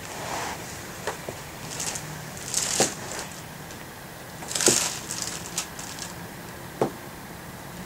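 Rustling and crinkling of a nylon pop-up cat play tunnel as a kitten scrambles around inside it, with two louder bursts about three and five seconds in and a few sharp ticks between.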